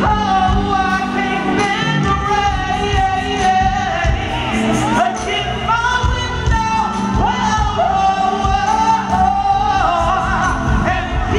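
Male lead vocalist singing live in a soul/R&B style, with a full band backing him.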